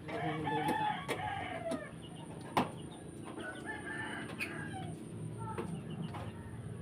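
A rooster crowing, one long held call near the start, with fainter calls a few seconds later and a single sharp knock in between.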